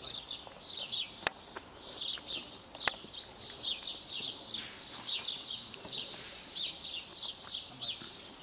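Songbirds singing without a break, a quick stream of high chirping notes that mostly slide downward. Two sharp clicks stand out, about a second and a half apart, in the first three seconds.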